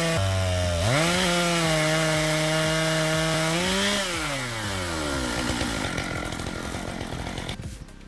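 Two-stroke chainsaw on a homemade log-slabbing rig running at high revs through a cut, dipping briefly under load near the start and climbing back. About four seconds in the throttle is let off and the revs fall away to a slow idle.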